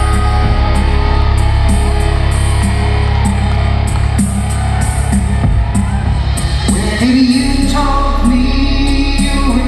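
Live band music in an arena: long held synthesizer chords over a steady deep bass, with electric guitar and a singing voice.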